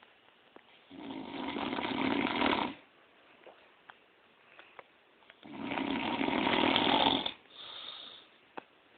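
A man snoring: two long snores about four seconds apart, each growing louder as it goes, the second followed by a shorter, softer one.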